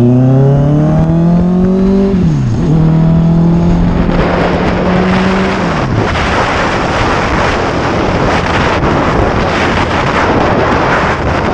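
Honda CBR650R inline-four engine accelerating under the rider: its pitch climbs, drops sharply at a gear change about two seconds in, climbs again and drops near six seconds. After that, loud wind rush on the microphone covers most of the engine sound.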